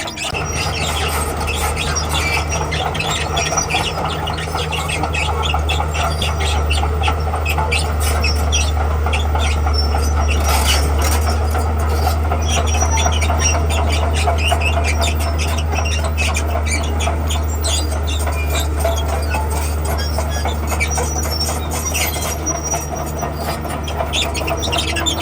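Diesel crawler machine working: a steady low engine drone, with its steel tracks squealing and clanking continuously.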